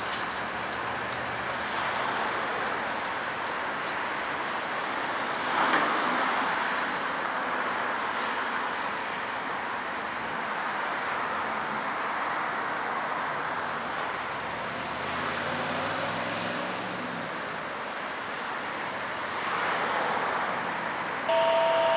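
The rear locomotive of a coal train, a BNSF ES44AC pushing as distributed power, passes and its steady rumble fades away, mixed with road traffic. A vehicle speeds up with a rising engine note about fifteen seconds in, and a loud steady two-tone beep starts near the end.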